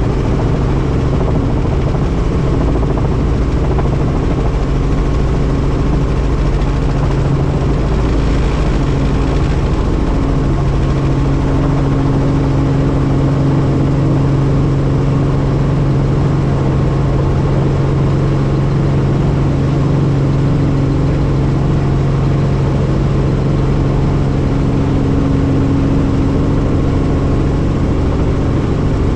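Helicopter engine and rotor running steadily: a constant loud drone with a steady low hum.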